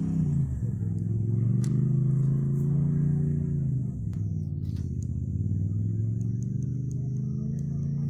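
Off-road race rig's engine idling, its revs sagging and picking back up twice.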